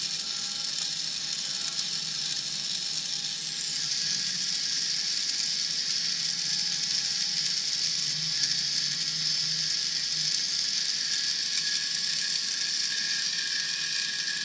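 Small servo drive motor of a 3D-printed 1/32 RC car running steadily, whirring through its plastic gears and cardan shaft. The high whir grows louder about three and a half seconds in.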